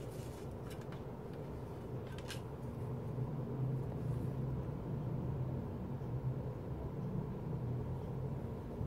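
A paper CD booklet being worked out from under the tabs of a plastic jewel case lid, with a few soft clicks and rustles in the first couple of seconds, over a steady low hum.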